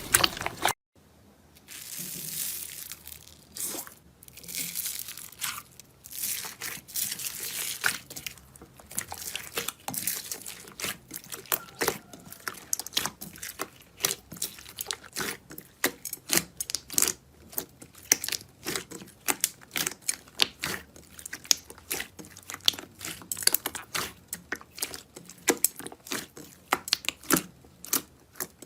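Slime being squeezed and pressed by hand, with swells of squishing and then many quick, irregular crackling pops. It starts after a brief drop to near silence.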